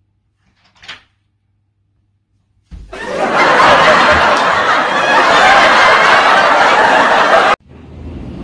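Loud canned crowd laughter, starting about three seconds in and cut off abruptly near the end, where quieter music begins.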